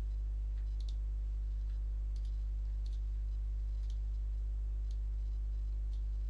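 A steady low electrical hum, with faint computer mouse clicks about once a second.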